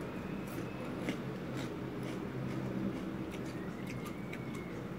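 Close-up chewing of crisp deep-fried pork intestine (chicharon bulaklak): scattered short crunches and wet mouth sounds. A steady low hum runs underneath.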